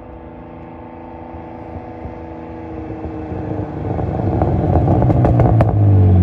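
Turbocharged BMW E46 coupe's straight-six engine approaching, its note growing steadily louder as the car draws close and easing lower as it slows. A few sharp cracks come near the end.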